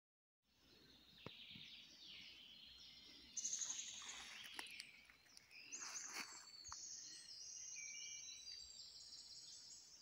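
Several songbirds singing faintly in a forest, with overlapping high chirps, trills and whistles. A rapid high trill a little over three seconds in is the loudest. A few soft clicks are scattered through.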